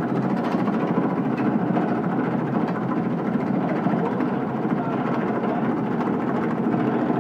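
Dake power hammer running, its doming dies striking a sheet of metal with rapid short strokes, thousands of beats a minute, as the sheet is moved between them to form a dome. The hammering is steady and even.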